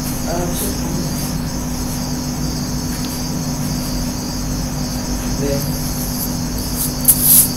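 Crickets chirring steadily, with a steady low hum beneath. A short, sharp rustle comes near the end.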